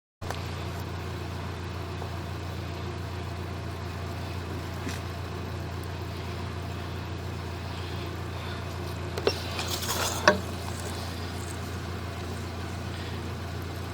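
A steady low machine hum, with a few brief knocks or clicks about nine to ten seconds in.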